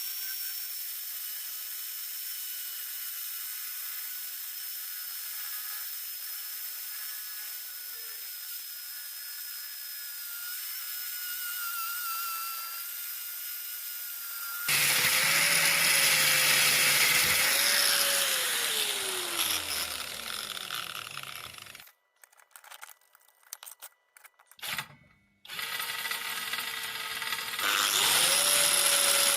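Electric power-tool motor: a thin steady whine at first, then running loudly and winding down with falling pitch until it stops. A few clicks follow, and it starts again, spinning up to a steady speed near the end.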